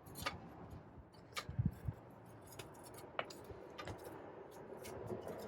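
Light metallic clicks and clinks of parts and tools being handled, about ten scattered taps over a faint steady hiss.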